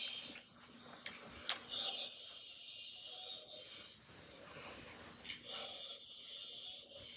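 An animal snoring in high-pitched, hissing snores, each lasting one and a half to two seconds, with quiet breaths between, about one every four seconds.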